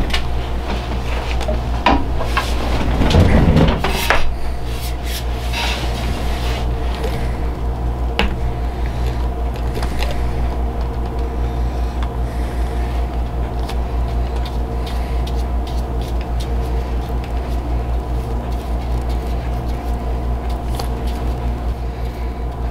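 A steady low machine hum throughout. Knocks and rustling in the first four seconds, then faint light clicks, as a glue jar and brush are handled and contact cement is brushed onto a bow grip.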